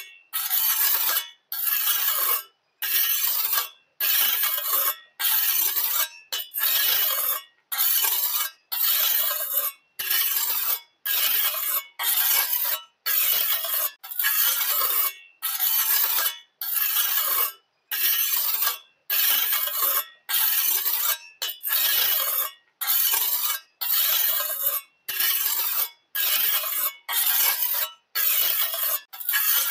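Small hand trowel scraping and smoothing wet cement in even strokes about one a second, each stroke cutting off abruptly into silence.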